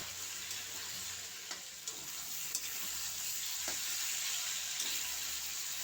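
Chopped onions and potatoes sizzling steadily in hot oil, with a few light taps of a spatula as they are stirred.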